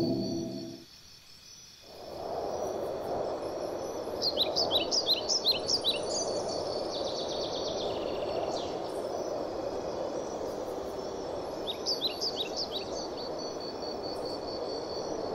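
Outdoor nature ambience: a steady rushing background with songbirds calling, in two bouts of quick, short, descending high chirps, one a few seconds in and another near the end.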